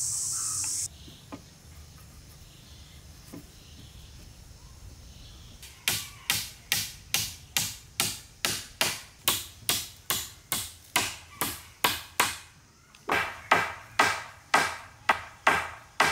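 Wood being chopped with a blade in quick, evenly spaced strikes, about three a second, in two runs with a short pause between. A high steady hiss cuts off about a second in, before the chopping starts.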